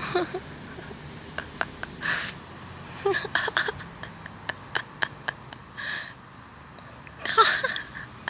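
Scattered light clicks and scuffs of a cat batting and biting at a grass stalk on concrete, mixed with a few short breathy huffs from a person, the loudest near the end.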